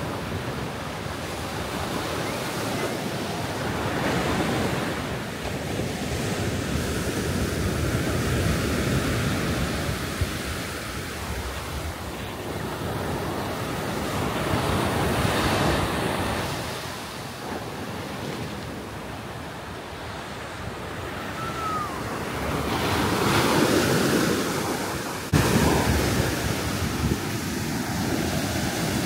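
Surf breaking on a sandy beach, the rush of the waves swelling and easing every few seconds, with wind buffeting the microphone. The level jumps suddenly about 25 seconds in.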